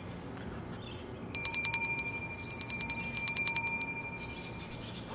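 A small brass hand bell shaken rapidly, ringing in two bursts that start about a second in, each fading away after the shaking stops.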